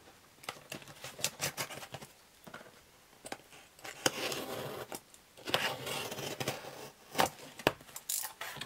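Cardboard shipping box being opened by hand: the cut, taped flaps are pulled up and apart, giving scattered scrapes, taps and clicks of cardboard, with two longer stretches of cardboard rubbing and rustling in the middle.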